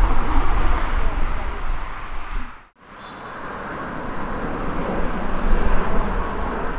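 Airliner engine noise that fades out to near silence a little under three seconds in, then builds back up steadily.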